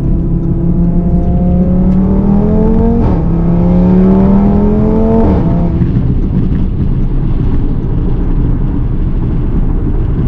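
Audi RS3's turbocharged 2.5-litre five-cylinder engine, heard from inside the cabin, accelerating hard. Its pitch rises, drops at an upshift about three seconds in, rises again and drops at a second shift about halfway through, then settles to steady cruising with road noise.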